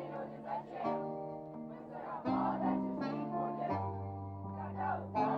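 A live pop band's backing music plays without lead vocal: held chords with guitar change about every second, and a low bass note comes in near four seconds. Faint voices sound under it.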